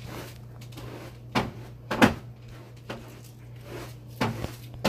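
Several scattered household knocks and bumps, the loudest about two seconds in, over a steady low hum.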